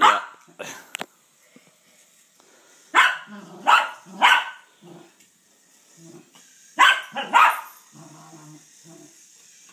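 Small dog barking at a toy train, about seven sharp barks in clusters of two or three, with quieter pauses between.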